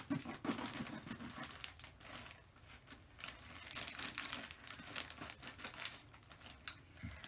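Plastic poly mailer bag crinkling in irregular bursts as it is handled and cut open with scissors.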